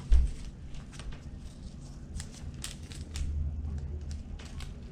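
Trading cards being handled and shuffled: light clicks and rustles of card stock, with a low thump right at the start.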